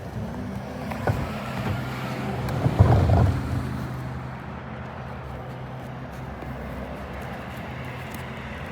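A motor vehicle running with a steady low hum, loudest about three seconds in.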